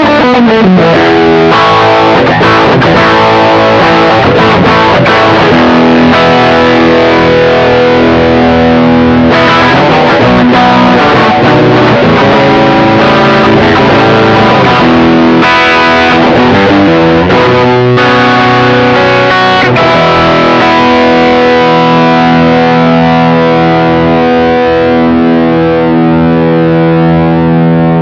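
Electric guitar played through a Caline Orange Burst overdrive pedal, a clone of the BB Preamp, recorded direct via a Joyo amp-simulator pedal: a run of driven licks and chords, then a chord left ringing for the last third.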